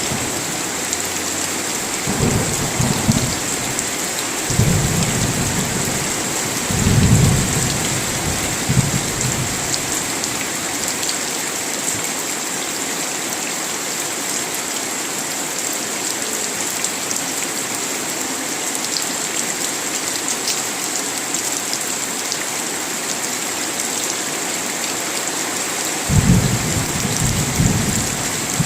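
Steady heavy rain with thunder. Low rolling rumbles come several times in the first nine seconds or so, then the rain goes on alone until thunder rumbles again near the end.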